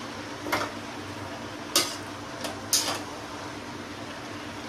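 Spatula clinking against a kadai while vegetables are stir-fried: three sharp metallic knocks about a second apart over a steady low hum.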